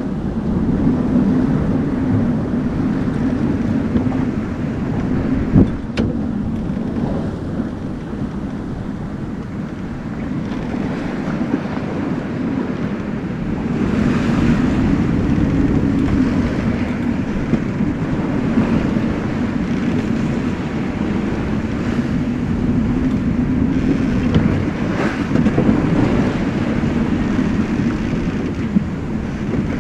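Wind buffeting the microphone and water rushing along the hull of a Vancouver 34C sailing yacht under way in a rough sea, a steady rush that swells and eases with the gusts and waves. A single sharp knock about six seconds in.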